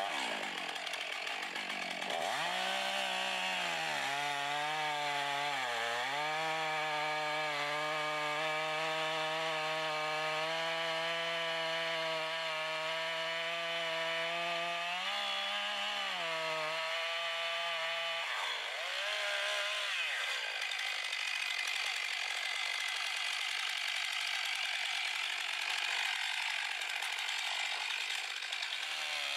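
Stihl MS 661 Magnum two-stroke chainsaw cutting into a ponderosa pine trunk, its engine note dipping as the bar bites in, then holding steady and rising briefly before it drops out a little past halfway. A steady noise without that engine note fills the rest.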